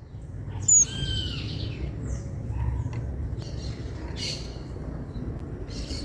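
Birds calling: a loud, sharp call with a curving pitch about a second in, then thin high calls a few times, over a steady low rumble.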